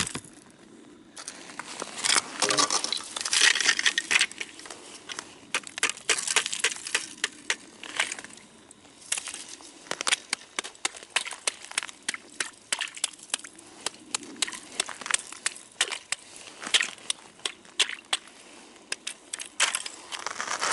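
Hatchet chopping ice out of a frozen-over ice-fishing hole: a quick, irregular run of sharp chops with ice chips cracking and crunching, broken by a few short pauses.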